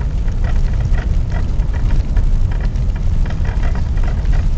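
Engine and road noise inside a moving car's cabin: a steady low rumble.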